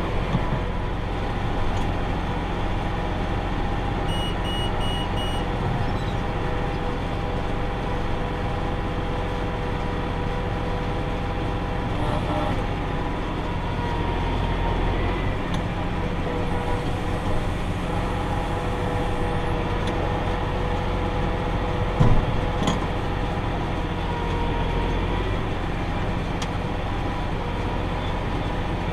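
Tractor engine running steadily while pulling a round baler through hay, with a steady mechanical whine from the drive. A few short high beeps sound about four seconds in, and there is a brief knock a little after twenty seconds in.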